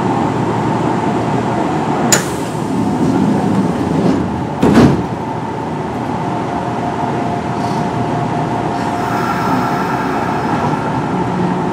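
Inside a Kintetsu 1420 series train standing at a station: a sharp click about two seconds in and a door-closing thump about five seconds in. Near the end the Mitsubishi GTO-VVVF traction inverter sets in with a steady low tone as the train starts to pull away.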